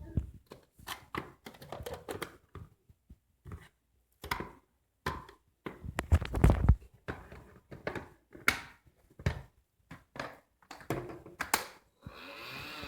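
Irregular plastic clicks and knocks from a cordless stick vacuum being handled, with a steady noise coming in near the end.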